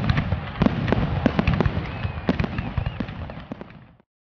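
Fireworks going off: a rapid, irregular run of sharp bangs and crackles over a low rumble, with a few faint whistles, fading out and then cutting off abruptly near the end.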